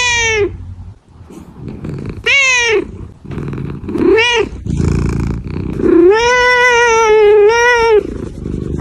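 Cat yowling in a series of drawn-out calls: three short ones and a last one that lasts about two seconds and wavers. A rasping noise comes between the calls.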